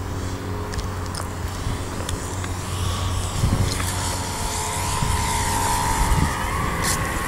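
Radio-controlled P-47 Thunderbolt model plane's motor and propeller whining, growing louder as it flies in on a low pass, with the pitch dipping slightly and then rising again near the end. Wind rumbles on the microphone underneath.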